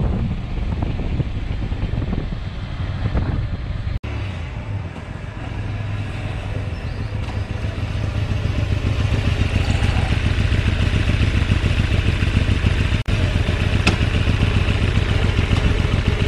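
Engine of a KR Motors Mirage 250DR (GV250DR) V-twin cruiser motorcycle, heard first while riding at road speed, then after an abrupt change about four seconds in as the bike rolls up at low speed and stops close by, getting steadily louder toward the end.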